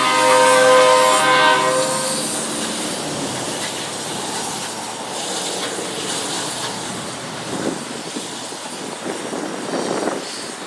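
Nickel Plate Road 765's steam whistle sounds a chord that ends about two seconds in. The 2-8-4 Berkshire steam locomotive then keeps working along the track as a steady noise of exhaust and running gear.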